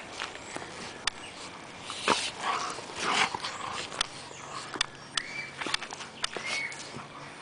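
A golden retriever and a golden retriever puppy play-wrestling: scuffling with sharp clicks, rough breathy bursts loudest a couple of seconds in, and a couple of short high squeaks near the end.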